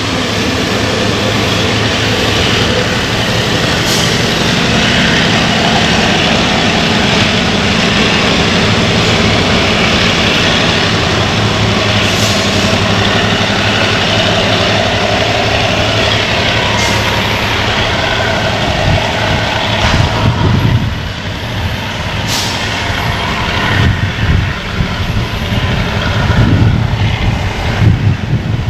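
Diesel-hauled Chu-Kuang express train pulling away: the diesel locomotive's engine running steadily under the noise of the coaches rolling over the track. The sound eases a little about two-thirds through, and irregular low thumps come near the end.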